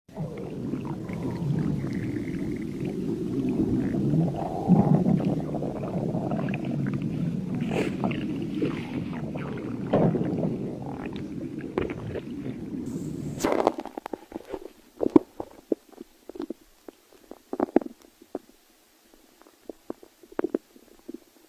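Stomach growling: a long, continuous low rumble full of gurgles, which stops abruptly about two-thirds of the way through and gives way to scattered short gurgles and pops.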